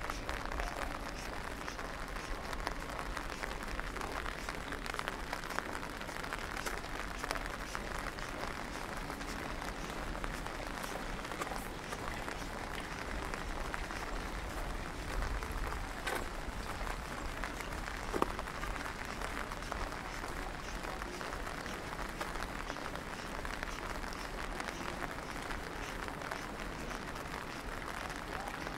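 Steady rain, a dense even patter of many small drops.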